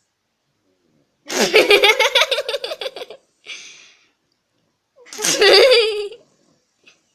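A woman laughing hard in two bursts, a couple of seconds apart, with a gasping breath in between.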